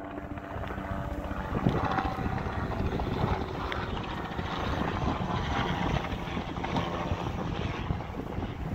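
Steady engine drone over a low rumbling noise.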